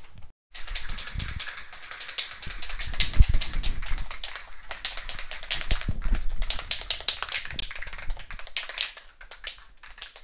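Aerosol spray-paint can shaken hard, its agitator ball rattling in quick clicks: the paint being mixed before spraying. There are a few dull knocks, the loudest about three seconds in.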